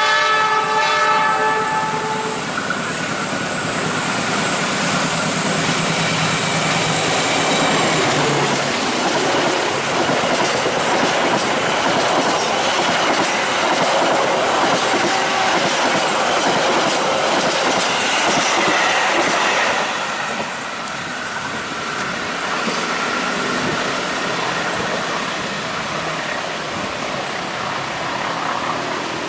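Train horn sounding for about two seconds, then a train passing with a loud, steady rush of rail noise that eases off about twenty seconds in.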